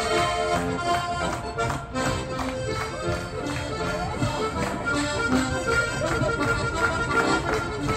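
Button accordion playing a traditional folk dance tune: a melody over steady, rhythmic bass and chord accompaniment.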